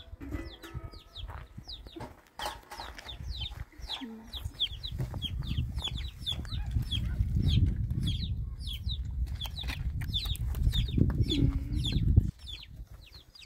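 Chickens calling: a steady run of short, high, falling calls, several a second, over a low rumble that swells from about five seconds in and cuts off suddenly near the end.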